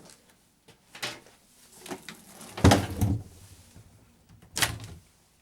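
A few knocks and bumps: one about a second in, a heavier thud with a deep low end after about two and a half seconds, and a sharper knock near the end, with faint rustling between.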